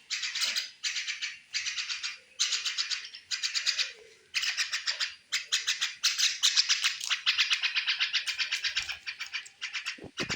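Mynas calling: harsh, rapid chattering in short bursts of half a second to a second, almost unbroken after about four seconds in.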